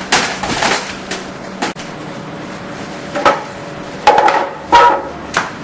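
A series of sharp knocks and thumps, several seconds apart, with the two loudest near the end ringing briefly.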